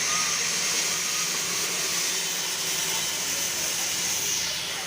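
Darjeeling Himalayan Railway steam locomotive venting steam: a steady, high hiss that eases off near the end.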